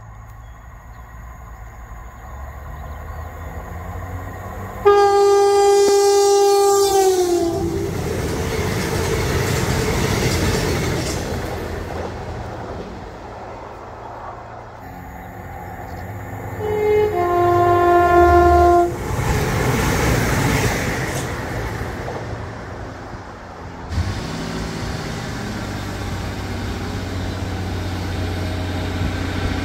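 Train horn sounded in one long blast of about three seconds, dropping in pitch at the end as the train passes, followed by the rush of the train going by. About ten seconds later a two-tone horn sounds, a brief higher note then a lower one held for about a second and a half, with another passing rush. From about four fifths of the way through, a steady low engine rumble.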